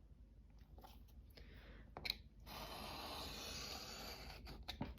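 Light handling of paper and card on a table: a few soft clicks and taps, then about two seconds of steady, soft scraping or rustling.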